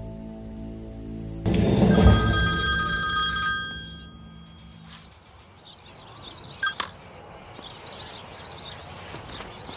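A music cue ends on a loud chord with chime-like ringing tones that hold for a few seconds and fade out. Then a faint outdoor background with a steady high hiss and a brief chirp about seven seconds in.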